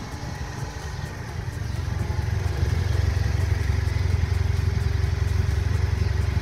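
Motorcycle engine running steadily, getting louder about two seconds in and then holding steady.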